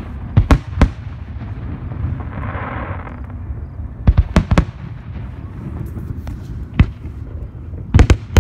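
Fireworks display: aerial shells bursting with sharp bangs, three in quick succession within the first second, three more about four seconds in, a single one near seven seconds and a fast pair near the end, over a steady low rumble.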